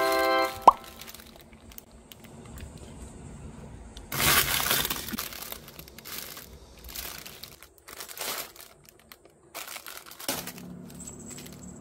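Crinkling and rustling handling noise with scattered small clicks, loudest about four seconds in, after a short held musical chord cuts off at the start.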